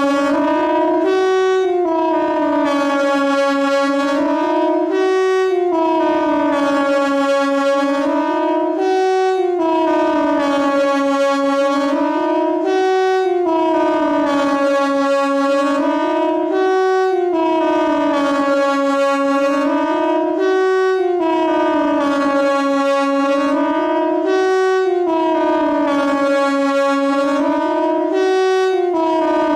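Siren sounding in a continuous wail, its pitch rising and falling about once every two seconds.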